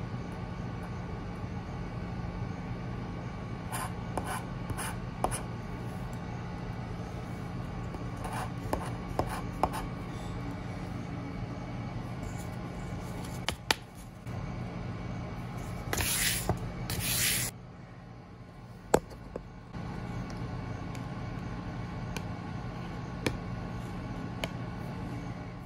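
A metal tool scratching the coating off a paper scratch-off lottery card in short scrapes and small taps, over a steady low hum. Two louder, longer scrapes come about two-thirds of the way through, followed by a brief pause before the scratching resumes.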